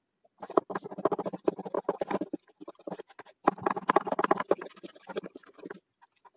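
Spoon beating thick wheat-flour batter in a stainless steel bowl: fast, rhythmic wet squelching and clinks against the steel, in two spells with a short pause around the middle.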